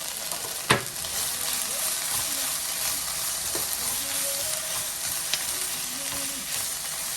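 Onions and peppers sizzling steadily in a little oil in a frying pan on low heat, with a sharp click about a second in.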